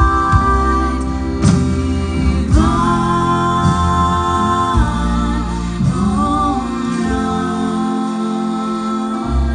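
Three women singing close harmony, holding sustained chords over a live band of accordion, guitar and double bass. The low bass drops out briefly near the end.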